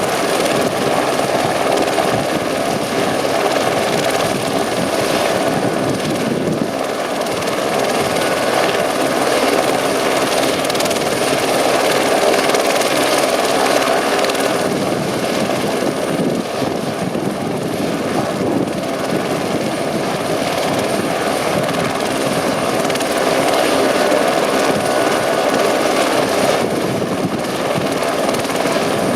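A Eurocopter AS350 Écureuil single-turbine helicopter running steadily. Rotor and turbine noise carry on throughout, swelling and easing slightly in level.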